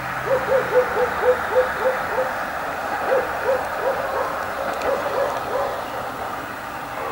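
A dog barking in a series of short barks, about three a second for the first two seconds, then slower and more spaced out, over a steady background hum.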